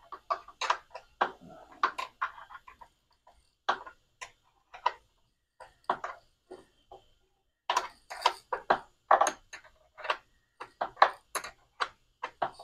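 Metal clicks and taps of a 10 mm wrench on a coolant-reservoir mounting fastener being loosened. The sharp ticks come irregularly, with quicker runs of them about eight and eleven seconds in.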